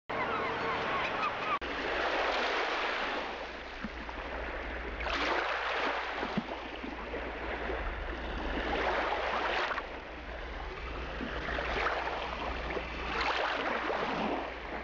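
Sea water washing in small waves, swelling and falling every few seconds, over a steady low rumble.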